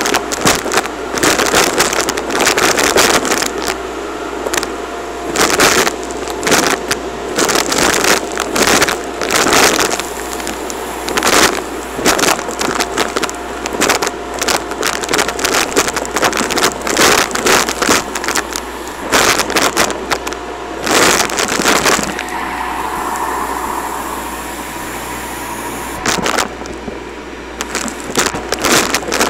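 Vacuum cleaner running through its hose with a steady whine, while confetti and clumps of fluff are sucked up with a rapid, irregular clatter of pieces hitting the hose and nozzle. For a few seconds past the middle the clatter mostly stops and only the steady running sound is left, then the clatter comes back near the end.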